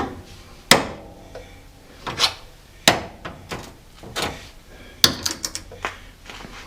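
A series of sharp knocks and clatter from hard objects being handled and set down, about five separate hits. The first, under a second in, rings briefly like metal, and a quick burst of rattling comes near the end.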